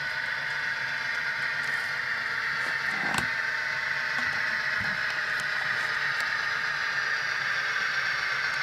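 Tsunami sound decoder in a Proto 2000 E8 model diesel locomotive, playing steady twin EMD 567 diesel engine sound through its small speaker as the model runs along the track. There is a single light click about three seconds in.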